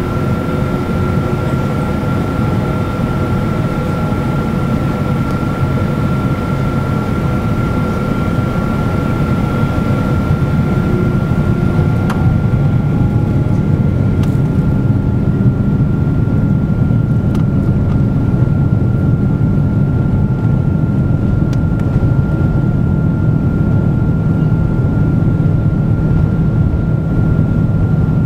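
Boeing 777-200 jet engines heard from inside the cabin: a steady drone with a constant high whine, growing a little louder about halfway through.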